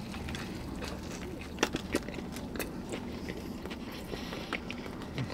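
Two people biting into and chewing fried chicken sandwiches, with a few short crunchy crackles over a steady low background hum.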